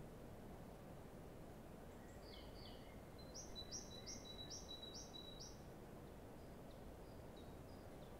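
A bird calling faintly over steady low background noise: two falling notes, then a run of six quick falling notes at about three a second, with a few fainter calls later.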